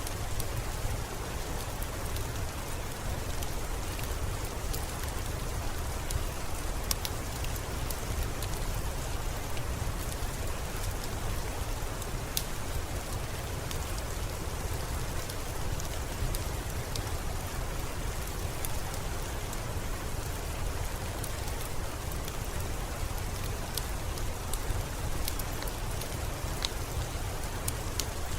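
Steady rain falling, with a low rumble underneath and scattered sharp crackles and pops from a wood fire.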